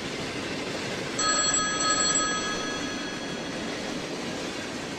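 A single steady ringing tone, like a phone or electronic chime, starting about a second in and lasting just over a second, over a constant hissing background noise.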